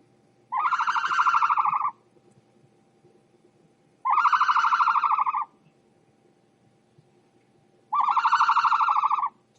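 An animal call, sounded three times: each a steady, buzzy, high-pitched call lasting about a second and a half, about four seconds apart.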